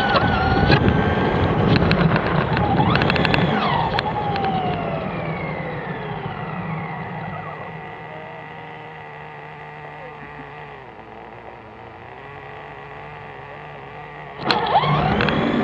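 Radio-controlled car's motor whining, its pitch gliding up and down as it speeds up and slows, with a quick run of clicks about three seconds in. The whine dies down over the next few seconds to a quieter hum, then comes back loud about fourteen seconds in.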